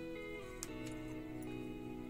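Soft background music of sustained notes that change about every half second, with a plucked-string sound, and a short click about a third of the way in.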